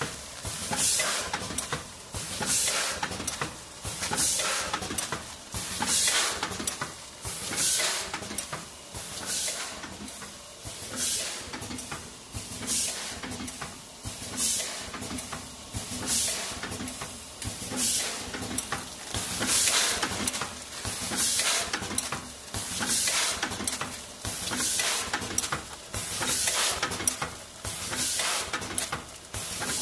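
Automatic vertical form-fill-seal bagging machine running through its packing cycle, with a burst of hissing about every second and a half over a steady low machine hum.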